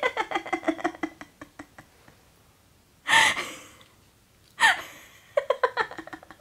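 A person laughing softly in short, breathy bursts: a run of quick pulses for the first two seconds, a burst about three seconds in, and another rising-and-falling run near the end.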